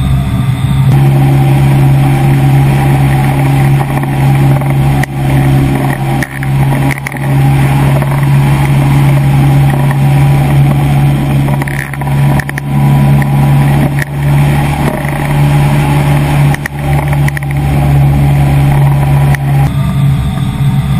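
AirBorne ultralight trike's engine and pusher propeller running steadily in flight, a loud constant drone whose note shifts slightly about a second in and again near the end.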